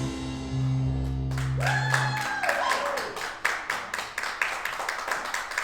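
A worship band's held chord dies away about two seconds in, and a congregation claps, in sharp, fairly even claps that carry on to the end.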